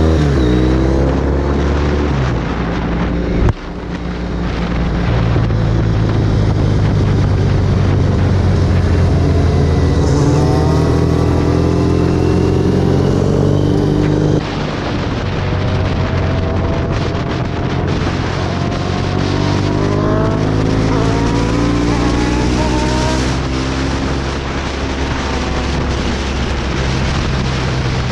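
Motorcycle engine heard from the rider's seat while under way, pulling through the gears with repeated rising sweeps in pitch. The sound jumps abruptly about three and a half seconds in and again around fourteen seconds in.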